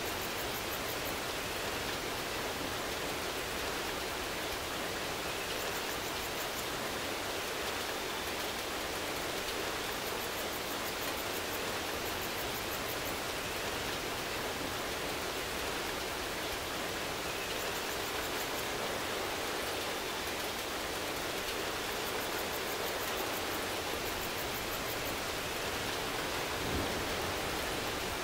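Steady rain falling, an even unbroken hiss. A brief low thud comes near the end.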